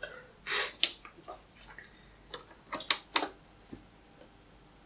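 A sheet of paper being handled and pulled away, with a brief rustle about half a second in, then a few sharp clicks and ticks, the loudest two close together about three seconds in.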